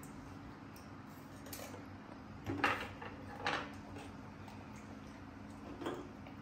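Three short clinks of a small knife against a plate while wax apples are cut, over a low steady hum.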